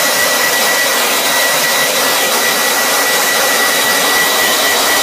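Hand-held hair dryer blowing steadily: a constant rush of air with a thin, high, steady whine on top.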